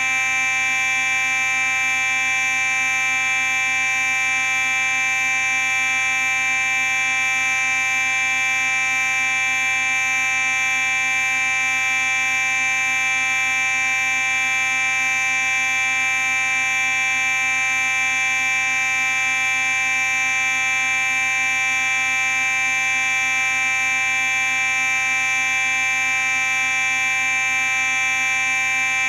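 Simplex 4903-9838 fire alarm horn sounding continuously: one loud, steady, unbroken tone with no pulsing or pauses.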